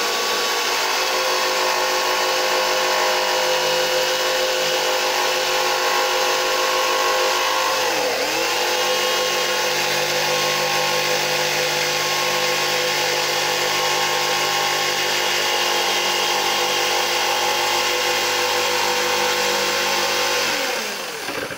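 Handheld electric trim router spinning up to a steady high whine. Its pitch dips and recovers once about eight seconds in, and it winds down near the end.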